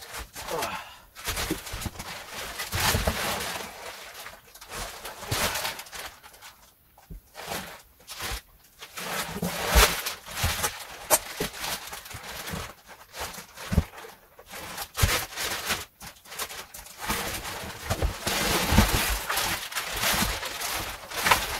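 Plastic wrapping rustling and crinkling as it is pulled off a cast-iron lathe bed in a cardboard box, with occasional knocks and bumps as the heavy bed is shifted.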